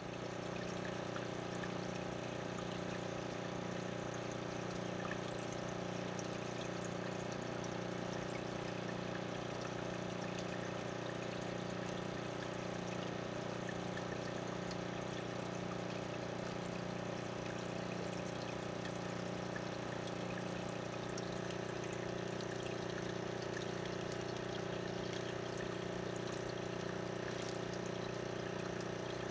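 Aquarium water filter running steadily, a low electric hum under water trickling as it circulates the tank water.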